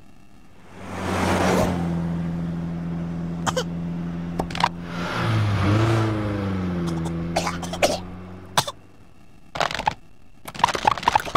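A car engine starts about a second in and runs with a low, steady hum. Midway it dips in pitch and rises again, then fades. Near the end come several quick fits of coughing: cartoon meerkats choking on the exhaust fumes.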